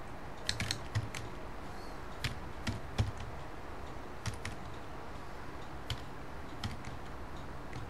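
Computer keyboard keystrokes, slow and irregular: a quick cluster of taps about half a second in, then single taps roughly a second apart, over a steady background hiss.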